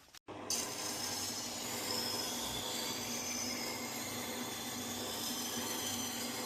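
Tormek sharpening machine running steadily, with a chef's knife blade grinding against the turning wheel as a continuous hiss over a low motor hum. The sound starts abruptly about a quarter second in.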